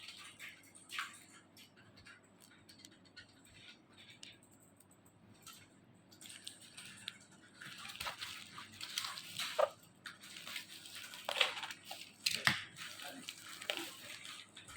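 Packaging being handled and opened: crinkling, rustling and small clicks and taps, sparse at first, then busier and louder from about six seconds in.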